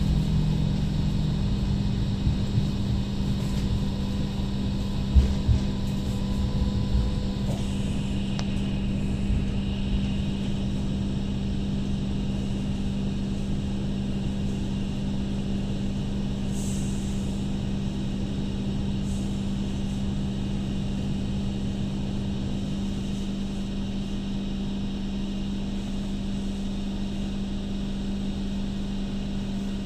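Interior running sound of an MTR Light Rail Phase I car: steady low hum and wheel-on-rail rumble, with a few clunks about five seconds in and a faint high whine appearing later, easing off gradually as the car slows to a stop.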